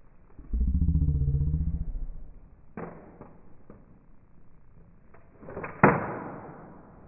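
Handling of a 9mm AR-15 carbine: a few metallic clicks, then a loud sharp clack near the end as the magazine is seated in the magwell. In the first two seconds there is a loud low drone with a wavering pitch.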